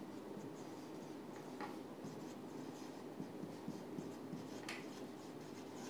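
Marker pen writing on a whiteboard: faint, short strokes as letters are drawn.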